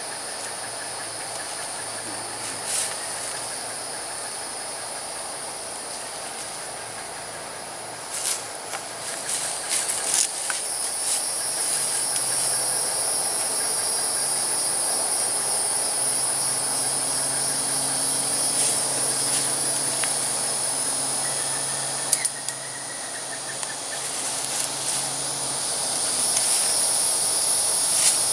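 Insects droning steadily in a continuous high-pitched buzz, with a few clicks and rustles about a third of the way in from strap and hammock handling.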